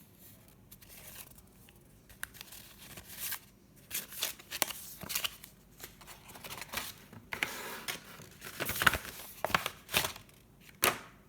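Phone-case packaging being handled and opened by hand: irregular rustling, crinkling and sharp clicks, busiest and loudest in the last few seconds.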